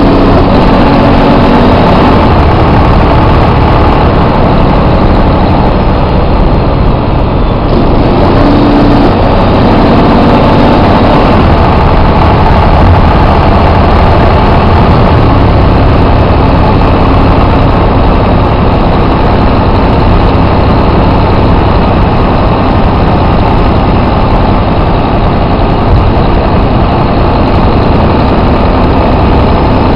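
Detroit Diesel Series 60 12.7-litre diesel in a coach running loud and steady while driving, its engine note shifting to a new pitch about eight seconds in and again about fifteen seconds in.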